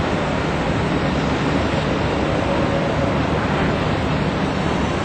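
Steady rushing of wind and water at a ship's side, with a low engine hum underneath.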